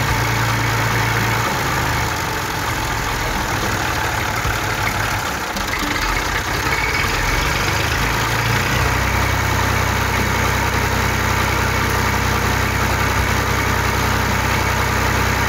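Steady engine running sound, like a tractor engine at idle, as the mini tractor tows the truck; the low hum grows heavier about nine seconds in.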